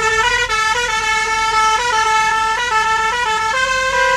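Truck's musical horn playing a tune: one buzzy tone hopping between notes two to four times a second.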